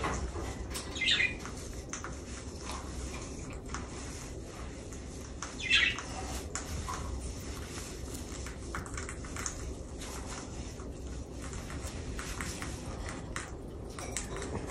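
White-bellied caique giving two short, high squawks, one about a second in and one near six seconds in. Soft rustling and small clicks come in between as it picks through hair.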